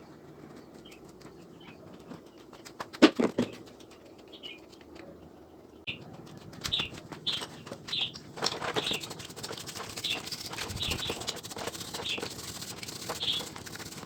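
A small bird chirping repeatedly with short high notes, roughly one or two a second, from about halfway through. There is a brief cluster of sharp knocks about three seconds in, and light clatter underneath.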